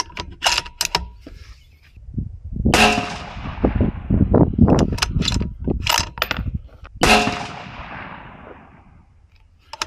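Two rifle shots from a 6mm BR bolt-action rifle, about two and a half seconds in and again about four seconds later, each followed by a long decaying tail. Short sharp clicks come before and between them as the bolt is worked to chamber the next round of a 29.8-grain Varget test load.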